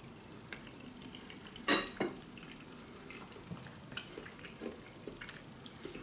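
Metal fork clinking and tapping against a bowl of food while eating, with one sharper clink nearly two seconds in and fainter taps scattered through the rest.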